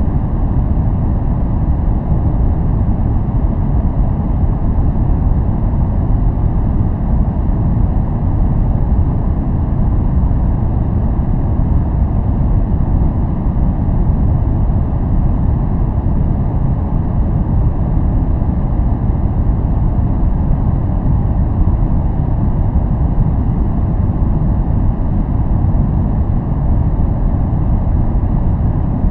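A steady, unchanging white-noise track. Most of its energy sits in the low end, so it is a deep rush rather than a bright hiss.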